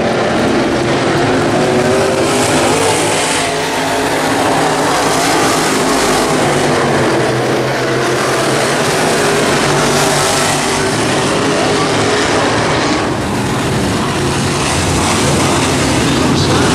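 Several race car engines running at racing speed around the oval, loud and continuous, swelling and fading as cars pass.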